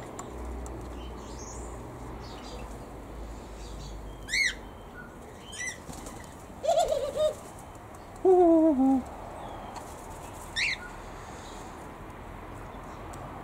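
Birds in a mixed aviary calling. There are short, high chirps a few times, and two lower calls that fall in pitch about seven and eight seconds in, the second being the loudest.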